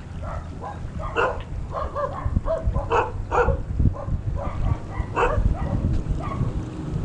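Dog barking in quick, irregular runs of short barks, over a low wind rumble on the microphone.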